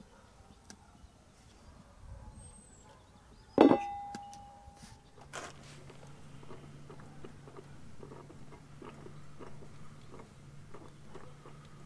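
A sharp metal clink that rings for about a second, then a stainless-steel coffee percolator perking on a small wood stove: quick irregular pops and gurgles over a low steady hum.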